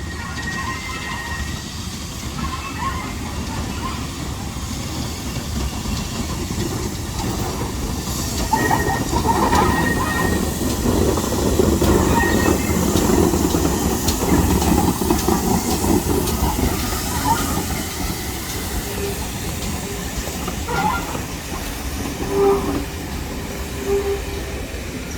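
A heritage railway train running past, its rumble growing loud a few seconds in and fading away after the middle.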